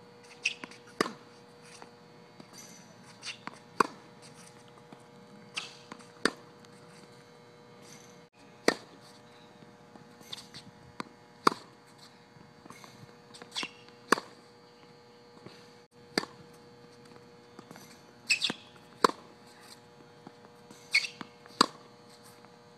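Tennis balls hit with a racket on a hard court: sharp pops repeating every two to three seconds, often in close pairs about half a second apart, with short high sneaker squeaks on the court surface between strokes. A faint steady hum runs underneath.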